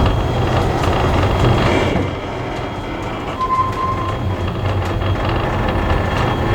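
Heritage passenger train running on the rails, a steady low rumble. A short high squeal comes about halfway through.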